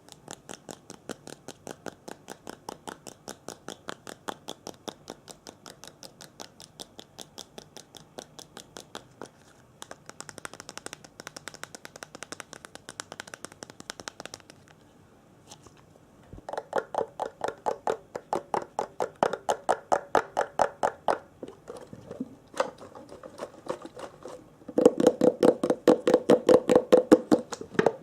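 Rapid, even tapping strokes on an object, about four a second, with two short pauses. They grow louder and take on a hollow, resonant ring about two-thirds of the way in, and are loudest near the end.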